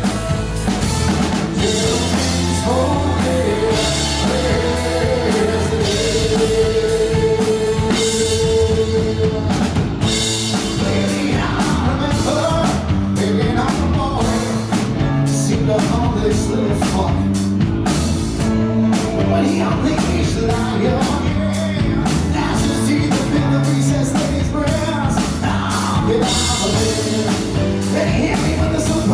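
Live rock band playing, with electric guitars, a drum kit and a man singing lead vocals. One long note is held through the first several seconds, then the drums hit hard and fast under the singing.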